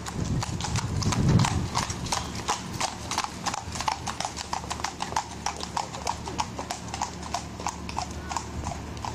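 Pony's hooves clip-clopping on a paved street as it pulls a two-wheeled sulky cart, a quick, even beat of about four strikes a second. A brief low rumble about a second in.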